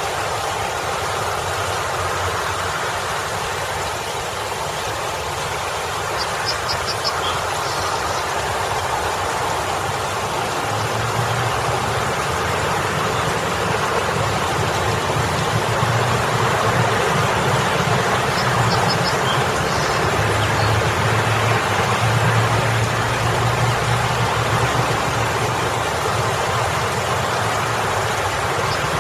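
Water from a boulder fountain splashing steadily into its pool, with road traffic passing behind it; the low rumble of passing vehicles swells about halfway through and again later.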